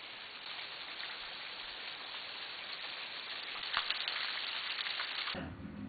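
Spring water streaming and splashing down a rock face, a steady hiss with a few clicks. About five seconds in the hiss cuts off suddenly and a low steady hum takes over.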